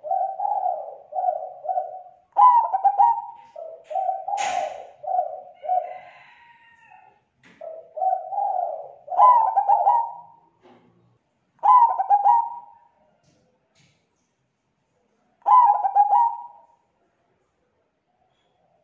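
Zebra dove (perkutut) cooing its song: rapid, rolling runs of short coos, nearly continuous at first, then in separate phrases a few seconds apart. This is the perkutut song used as a lure call to draw other zebra doves. A single sharp click sounds about four and a half seconds in.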